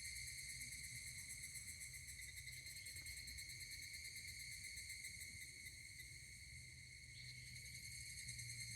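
Higurashi (evening cicadas, Tanna japonensis) calling: a faint, steady, high-pitched trill with a fine rapid pulse.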